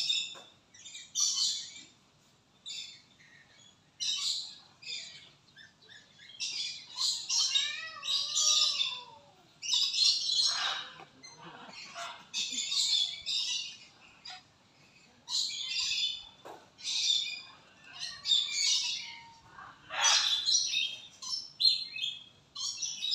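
Several birds chirping and calling in short, high-pitched bursts every second or so, with a few gliding calls about eight seconds in.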